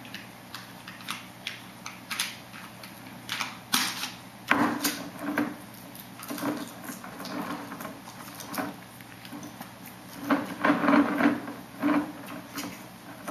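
Irregular clicks, taps and knocks of kitchen containers and utensils being handled on a countertop, with louder clattering clusters about four seconds in and again near the end.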